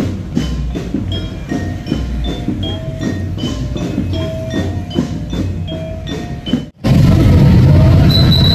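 Javanese gamelan-style percussion: a steady beat of drum strokes under short ringing notes from metal mallet instruments at several pitches. Nearly seven seconds in it cuts off abruptly and gives way to louder, dense street noise.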